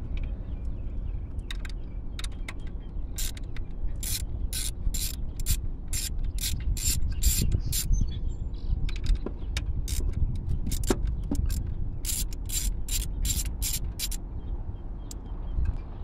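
Hand ratchet clicking in irregular runs of quick strokes as it backs out the screws holding the ignition control module in the distributor of a 1984 Oldsmobile Cutlass 307 V8. A low, steady background rumble sits beneath the clicks.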